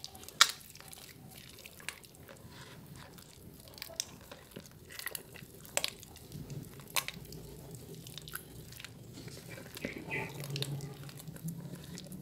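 Soaked, mushy bar soap being squeezed and kneaded by hand in a bowl: wet squelching and crackling, with irregular sharp squishes, the loudest shortly after the start.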